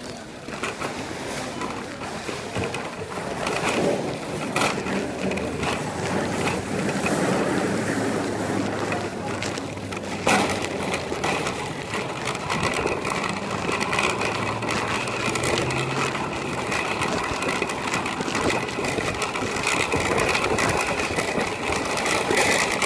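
Shopping cart rattling as it rolls over pavement, with a few sharp knocks.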